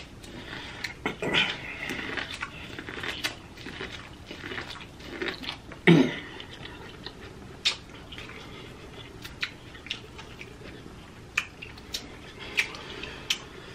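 A person biting and chewing corn on the cob, with irregular wet mouth clicks and smacks.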